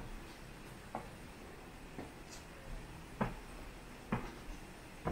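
Footsteps on stone paving: soft, separate steps, about one a second.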